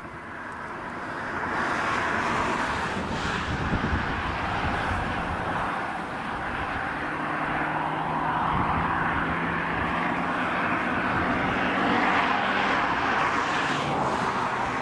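Boeing OC-135B's four turbofan jet engines running as the aircraft rolls along the ground. It is a steady, loud jet rush that swells about a second and a half in and then holds.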